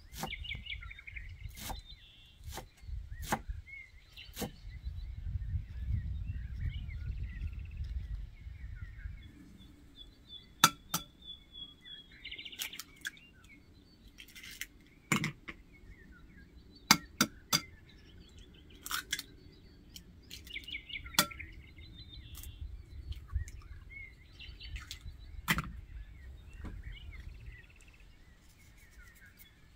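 Small birds chirping and singing throughout. Over them, a knife chops on a wooden board at about one stroke a second at the start, then scattered sharp taps and clinks come as eggs are cracked into a ceramic bowl.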